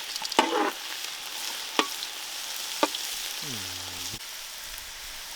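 Food sizzling in hot oil in a pan, a steady hiss. A utensil knocks sharply against the pan three times while the food is stirred.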